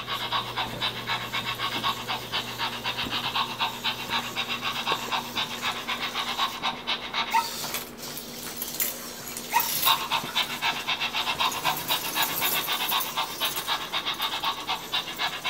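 Rapid, steady dog-like panting from a Zoomer robot puppy's built-in speaker, a quick even run of short breaths with a brief break near the middle.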